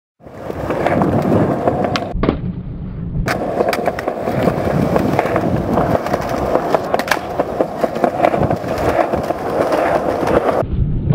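Skateboard wheels rolling over paving, with repeated sharp clacks of the board striking the ground as tricks are popped and landed.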